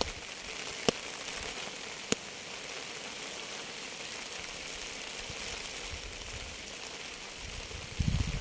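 Steady rain falling, a constant hiss with a few single sharp drops striking close by. A short low rumble comes near the end.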